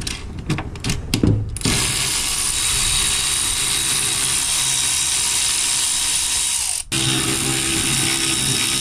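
A few sharp clicks and knocks, then a cordless power ratchet running steadily, spinning out a suspension bolt; it stops for a moment about seven seconds in and starts again.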